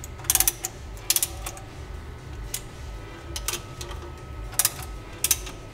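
Socket ratchet wrench clicking in short bursts, about one a second, as it tightens the nut on a hold-down clamp, over a low steady hum.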